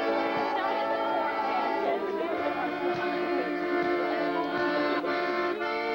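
Piano accordion playing a tune, with held notes and chords changing from time to time.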